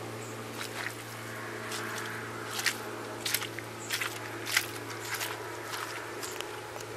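Hiking boots stepping on wet, muddy grass: a string of irregular soft steps and crunches, over a steady low hum.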